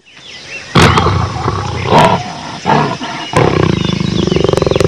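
Big cat roaring, added as a sound effect: loud roars break in about a second in, then turn into a long rattling growl in the second half, with faint high chirps in the background.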